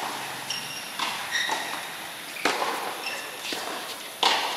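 Tennis rally on a hard court: four racket strikes on the ball about one to two seconds apart, the loudest near the end, with short high squeaks of shoes on the court between them.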